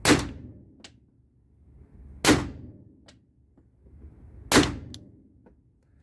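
Umarex Glock 17 Gen 5 blank pistol firing three 9mm blank rounds, one about every two and a quarter seconds. Each shot is a sharp crack followed by a short echo off the walls of the indoor range.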